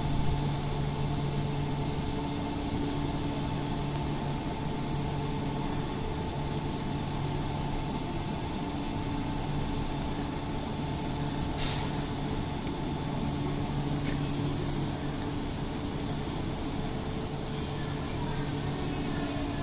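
E4 series Shinkansen standing at the platform, its onboard equipment giving a steady hum with several low, even tones. A short hiss of released air about twelve seconds in.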